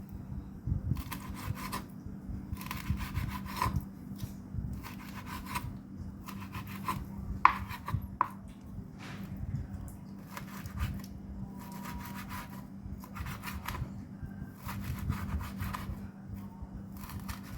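A kitchen knife slicing raw liver on a cutting board: a series of short rasping strokes about a second apart, with two sharp taps of the blade on the board near the middle.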